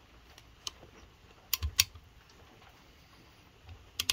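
Sharp clicks and light knocks from a valve spring compressor being worked on a cylinder head's valve springs. A single click comes about half a second in, a quick run of three about a second and a half in, and another pair near the end.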